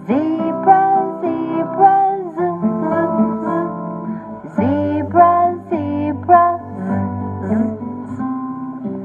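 Recorded educational children's song: acoustic guitar accompaniment with a singing voice in two short phrases, one at the start and one about four and a half seconds in.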